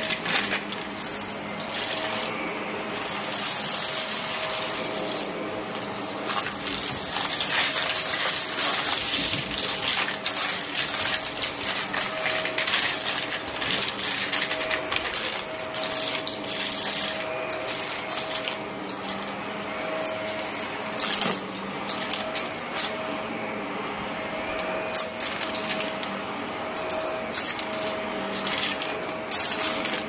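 Shark upright vacuum cleaner running steadily as it is pushed over carpet, a constant motor whine under the airflow. Frequent small clicks and rattles throughout as crumbs and grit are sucked up through the nozzle.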